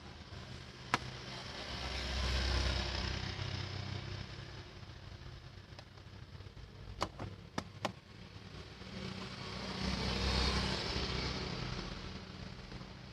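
Two road vehicles pass by one after the other, each swelling up and fading away over a few seconds. A sharp click comes about a second in, and three quick clicks come between the two passes.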